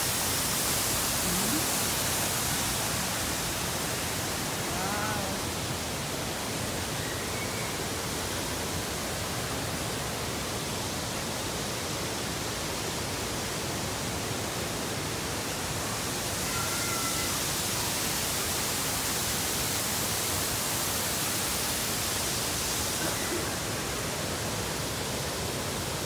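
Waterfall pouring into its plunge pool: a steady rushing hiss of falling water, its higher hiss swelling and fading slightly twice.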